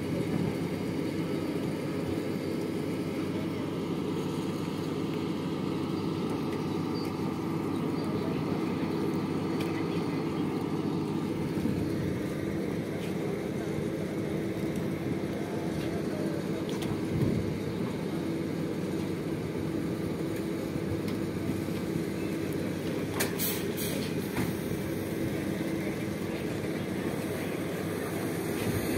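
Steady drone of a turboprop airliner engine running on the apron, with a constant hum and no change in pitch. A couple of short sharp clicks about three-quarters of the way through.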